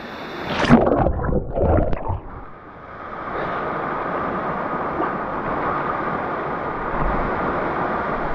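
Water splashing close to a handheld action camera as a swimmer moves in a pool. About three seconds in it gives way to a steady rushing noise of water moving over the camera.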